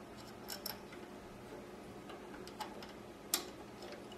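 A few light, irregular metallic clicks as small screws are fitted by hand into the retaining piece of a Cowboy CB3200 leather sewing machine's rotary hook, the sharpest near the end, over a faint steady hum.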